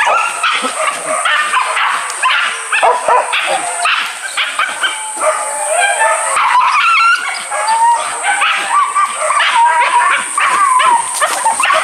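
A pack of hunting dogs barking, yelping and whining all at once. Their calls overlap without a break.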